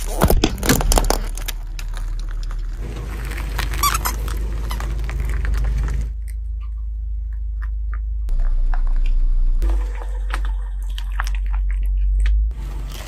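Car tyre rolling slowly over a small plastic squeeze toy, which squeaks and cracks as it is squashed; after about half the time the tyre rolls onto toothpaste tubes and squashes them, under a steady low rumble from the car.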